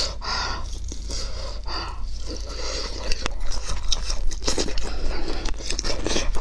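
Close-miked biting and chewing of a grilled sausage, with irregular mouth clicks and smacks that come more often in the second half.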